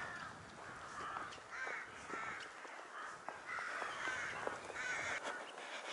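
Crows cawing, a string of faint, harsh calls spaced a second or so apart.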